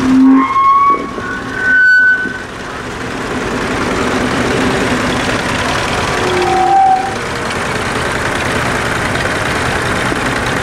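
Vintage tractor engines running as tractors drive past in procession. The sound grows louder and stays steady from about three seconds in. A few short, steady tones sound briefly in the first two seconds and again around seven seconds.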